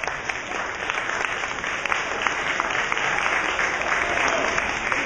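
Audience applauding: many hands clapping in a dense, steady spatter of claps.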